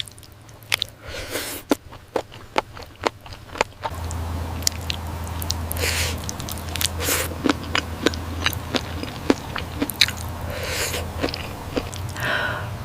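Close-miked chewing and biting of spicy octopus: wet, irregular mouth clicks and smacks with a few short slurping hisses. A low steady hum comes in about four seconds in.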